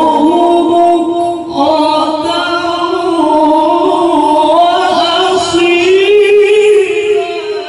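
A male qori reciting the Quran into a microphone in the melodic, ornamented tilawah style, holding long wavering notes with a short break for breath about a second and a half in.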